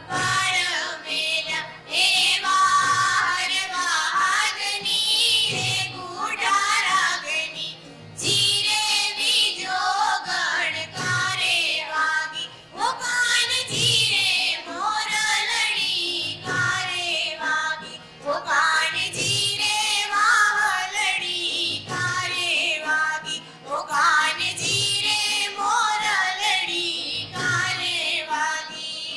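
Music: a song sung by high voices with instrumental accompaniment.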